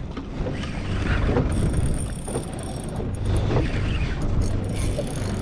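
Steady wind and water rumble around a small open boat, with a spinning reel being cranked and a few faint clicks as a giant trevally is fought on a popping rod.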